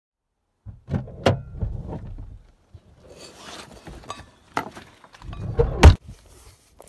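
A backpack and camping gear being handled, with rustling, knocks and a sharp click, and a loud heavy thump just before the end.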